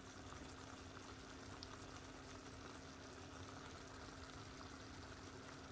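Pot of fava bean stew simmering: faint, steady bubbling with small pops, over a steady low hum.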